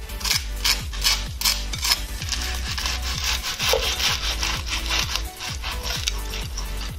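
A knife sawing through the crisp breadcrumb crust of a fried scotch egg, a run of scratchy, crunchy strokes that thicken into a steady rasp and fade out about five seconds in. Electronic background music with a steady kick-drum beat plays underneath.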